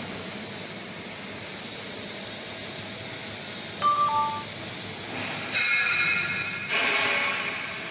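TR-B railway brake valve test bench running with a steady background hum. About four seconds in a short two-note falling chime sounds, and near the end come two loud bursts of hissing, about a second each.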